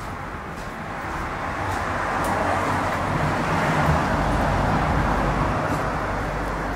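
A vehicle passing close by: a steady rushing noise with a low hum that builds to a peak about four seconds in, then slowly fades.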